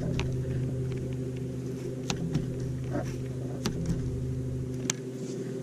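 Bass boat's bow-mounted electric trolling motor humming steadily, with a few faint clicks.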